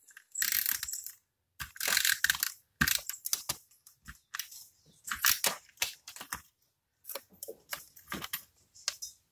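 Paper pieces being handled and shuffled by hand: irregular rustles and crinkles with small taps, in several short bursts.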